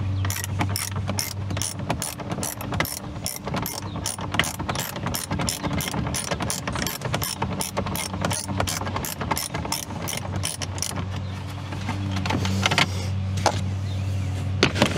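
Hand ratchet wrench clicking rapidly and evenly, about four clicks a second, as a fastener holding the truck's center dash is turned out; the clicking stops about eleven seconds in, leaving a few scattered clicks. A steady low hum runs underneath.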